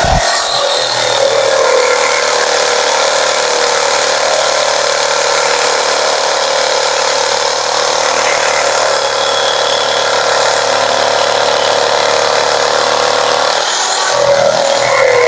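Modern-brand electric jigsaw cutting through a wooden board, running loud and steady. It is fitted with a new, not-yet-filed blade, which the owner finds cuts too slowly.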